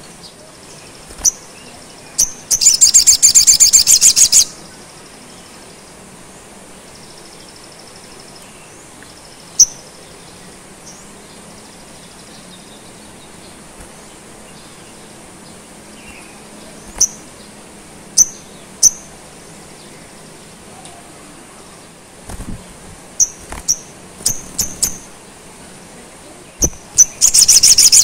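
Male olive-backed sunbird singing in a cage: a loud, rapid, very high trill lasting about two seconds near the start, then scattered single sharp chirps, and another rapid trill beginning near the end.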